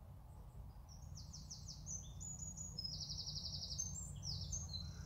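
A small songbird singing a long, fast, high-pitched song of rapid trills and short notes, starting about a second in, over a low steady background rumble.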